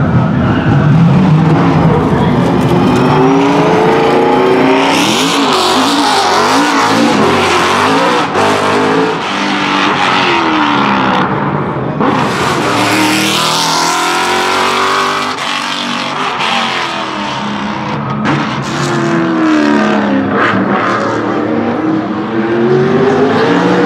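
BMW Z4 GT3's naturally aspirated 4.4-litre V8, derived from the M3 E92 engine, revving hard. The engine note climbs and drops again and again as the car accelerates and lifts, loud throughout.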